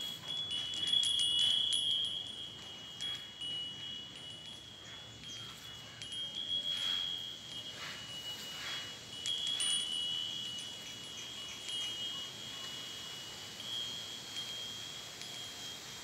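Hanging bell wind chime ringing in the breeze, with repeated light strikes and high tones that ring on between them. The loudest strikes come about a second in and again a little past the middle.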